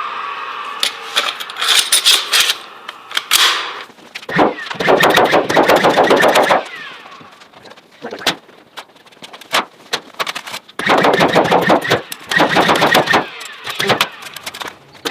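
Nail gun driving nails into framing lumber, firing many sharp shots, some singly and some in fast runs.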